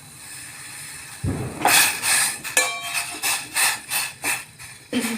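Kitchen utensils knocking and clinking, about two or three sharp strikes a second with a brief metallic ring on some. They start about a second in, after a faint steady hiss.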